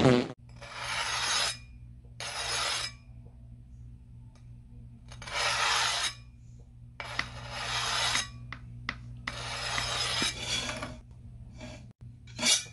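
Sword-sharpening sound effect: about six scraping strokes of a blade, each up to a second or so long with pauses between, over a steady low hum.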